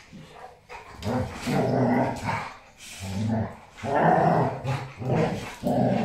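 Two young Dogo Argentinos growling in several short bursts as they wrestle in rough play.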